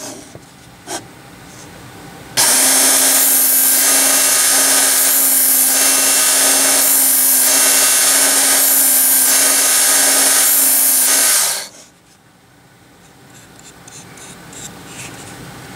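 Work Sharp Knife and Tool Sharpener's belt motor starts suddenly a couple of seconds in and runs steadily with a hum. A knife blade is drawn across the moving abrasive belt in about five passes, each a swelling grinding hiss. The motor shuts off about three-quarters of the way through and winds down quickly.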